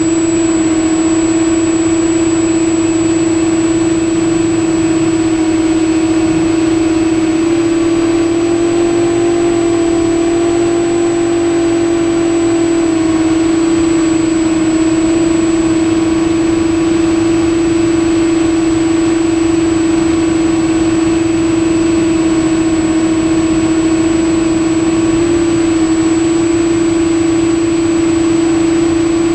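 Quadcopter's electric motors and propellers humming steadily, heard close from the onboard camera, with a constant thin high whine above; the pitch shifts slightly a couple of times as the throttle changes.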